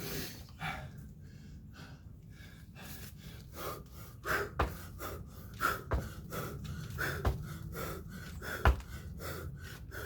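Hard, gasping breathing of a man mid-workout, and in the second half five sharp thuds about a second and a half apart: his feet landing from a run of kettlebell jump squats.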